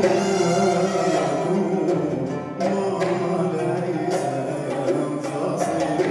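Live Bahraini sout music: oud and singing, with the ensemble beating small hand drums in sharp strokes.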